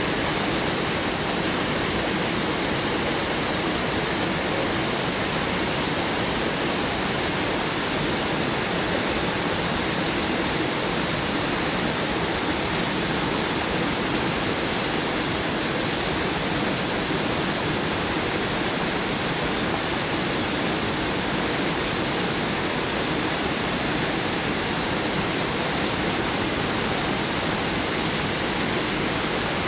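Heavy storm rain falling in a steady, dense downpour, an even rushing hiss with no let-up.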